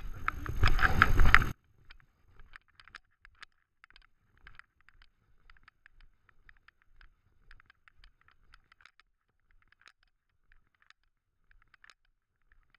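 Loud rubbing noise on the microphone cuts off abruptly about a second and a half in. After that there are only faint, irregular light clicks from a dog's harness-mounted camera rig as the dog walks.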